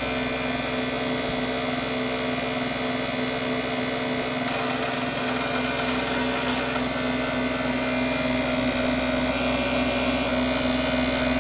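Teletype BRPE high-speed paper tape punch running and punching a message onto tape: a noisy, continuous mechanical buzz over a steady motor hum. It grows brighter and harsher for a couple of seconds about halfway through.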